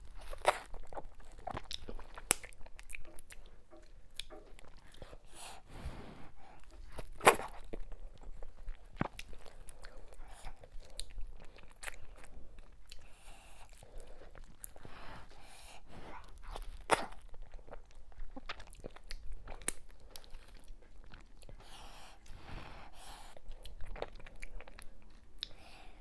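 Close-miked eating of fufu dipped in ogbono soup: chewing and wet mouth sounds, with short sharp smacks and crunches about once a second. The loudest come about seven and seventeen seconds in.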